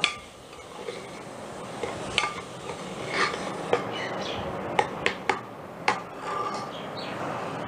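A steel spoon stirring and scraping tomato and onion masala around a pressure cooker pot, with a steady rasping scrape and several sharp clinks of the spoon against the metal sides.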